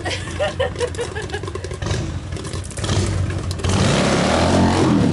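Harley-Davidson motorcycle's V-twin engine running and revving hard during a burnout, building to a loud, rushing surge with a gliding pitch over the last second and a half.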